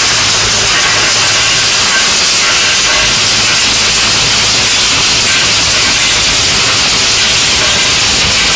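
Belt-driven stone crusher and rotating drum sieve running, with crushed stone rattling through the turning screen as a loud, steady rushing noise.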